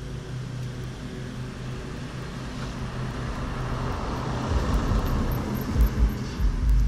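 A small engine drones steadily in the background, fading in the middle. Louder low rumbling comes in over the last couple of seconds.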